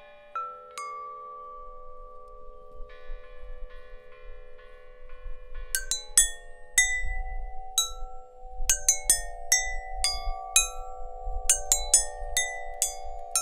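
Chimes ringing, struck irregularly. Each strike leaves a long ringing tone, and several pitches overlap. The strikes come sparsely at first and thick and fast from about halfway through.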